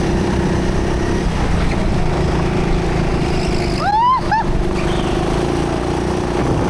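Onboard sound of a rental go-kart running steadily at speed, a continuous motor drone from the kart and the karts around it. About four seconds in, as the kart corners, two short high squeals rise and fall.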